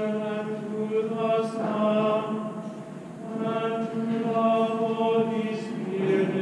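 Men's schola singing plainchant in unison, long held notes in phrases with short breaks between them.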